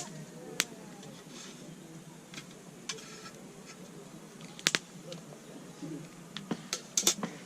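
Wood campfire crackling: irregular small pops and clicks, with a few louder snaps, two of them close together near the end.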